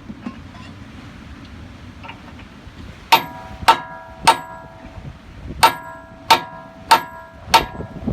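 Hammer blows on steel, each a sharp clang that rings on with a metallic tone. There are seven blows, about 0.6 s apart: three starting about three seconds in, then after a short pause four more.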